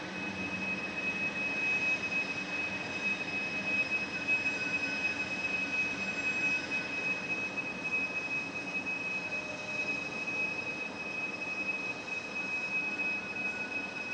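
Norfolk Southern train rolling past unseen, its wheels giving a steady high-pitched squeal over the rumble of the cars. The sound grows louder as it begins.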